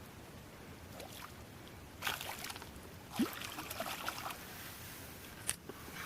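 Faint splashing and trickling water, with a few brief knocks, as a small hooked fish is drawn in and landed.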